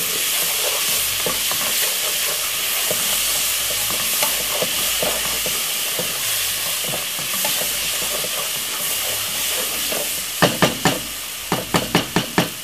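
Seasonings, browning and ketchup sizzling in hot oil in a pot while being stirred with a spoon. Near the end comes a quick series of about eight sharp knocks.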